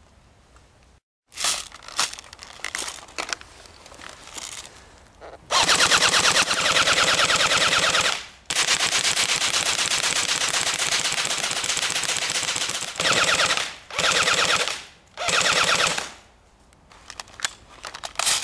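AK-47 airsoft electric gun (AEG) with a metal gearbox firing on full auto: a long run of several seconds of rapid even cycling, broken once, then three short bursts of under a second each. Scattered clicks of handling before the firing and near the end.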